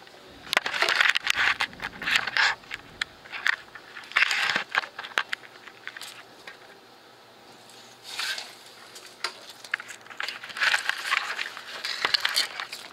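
Handling noise on the camera's microphone: irregular clusters of rustling, scraping and crackling clicks as the camera is moved around.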